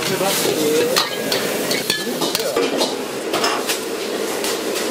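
Food sizzling in a wok or pan while a metal ladle or spatula stirs it, knocking and scraping against the pan many times at an uneven pace.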